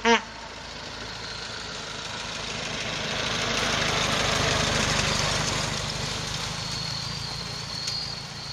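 1914 Ford Model T truck's four-cylinder engine running as the truck drives past, growing louder to a peak about four to five seconds in and then fading as it drives away. A short horn honk sounds right at the start.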